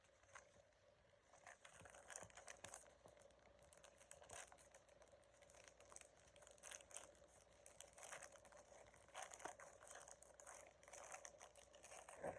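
Faint, scattered crinkling and rustling of packaging, with small clicks, as a pack of Crocs Jibbitz charms is opened by hand.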